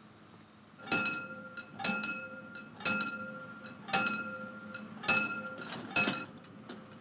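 Railway level-crossing warning bell striking about once a second, each stroke ringing on. It sounds six times, starting about a second in, with one stroke doubled.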